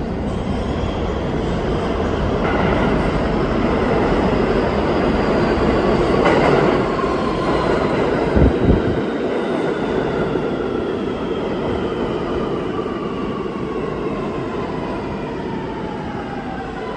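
New York City Subway R211A train pulling into an underground station over loud wheel and track rumble, its motor whine falling steadily in pitch as it slows. There are two low thumps a little past the middle.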